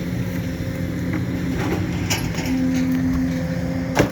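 Excavator's diesel engine running steadily, with a brief higher steady tone in the middle, a few light clanks and one sharp knock near the end.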